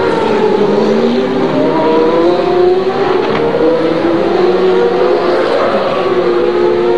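Several CART Indy car engines running at once, their pitches rising and falling as the cars accelerate and lift off around the circuit; one climbs steadily in pitch early on.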